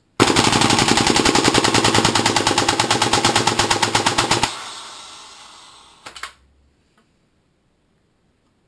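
WE L85A2 gas blowback airsoft rifle firing a long full-auto burst dry, its bolt cycling rapidly with no BBs. After about four seconds the cycling stops and a hiss of gas fades away as the magazine's gas runs out, followed by a couple of small clicks.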